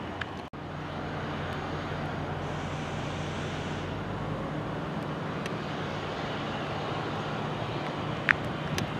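Steady low mechanical drone, like a distant engine or traffic, under outdoor background noise. It drops out briefly half a second in, and a few faint clicks come near the end.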